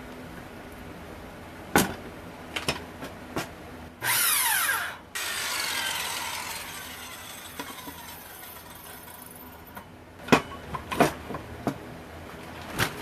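Skil handheld circular saw run briefly about four seconds in, then its motor and blade winding down slowly over several seconds. Knocks and clunks of boards being handled come before and after.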